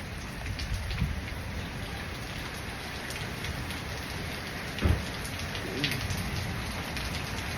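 Steady rain falling, a continuous even hiss of drops, with one brief low thump about five seconds in.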